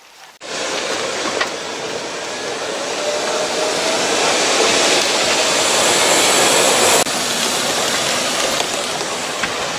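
Loud, steady rushing noise that starts abruptly about half a second in and breaks briefly about seven seconds in.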